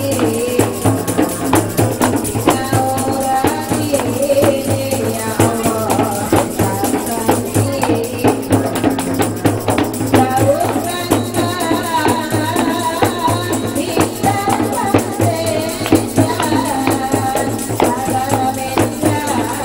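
Music: a melody sung or played in bending lines over a steady, quick percussion beat.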